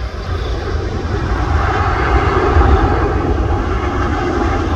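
The four jet engines of a Boeing 747-8 freighter on landing make a steady rushing noise that builds in loudness over the seconds as the aircraft touches down and rolls past.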